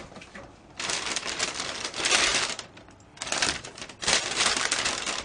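Plastic takeout bags rustling and crinkling in three bursts as food containers are pulled out of them.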